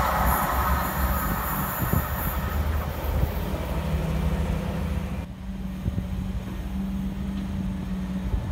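A passing train rumbling away into the distance, its noise fading over the first few seconds. About five seconds in the sound cuts to a quieter, steady low drone.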